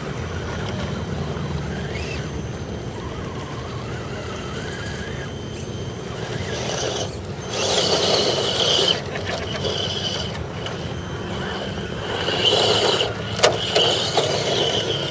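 Scale RC crawler trucks climbing a loose dirt slope: electric motors whining under load and tyres scrabbling on gravel, loudest in two stretches about 7 s and 12 s in, with a sharp click a little after 13 s.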